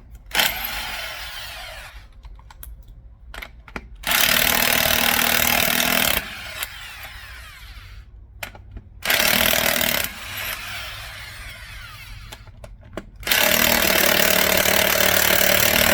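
Impact wrench hammering on a truck's wheel lug nuts in four runs, the last and longest starting about 13 seconds in and still going at the end. The gun is straining to break a stubborn lug nut loose.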